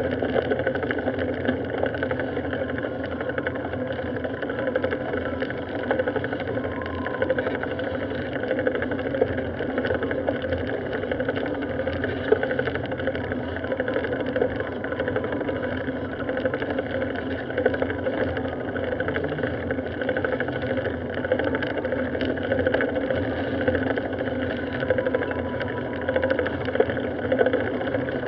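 Steady wind and road rumble from riding a bicycle along a street, picked up by a bike-mounted action camera's microphone.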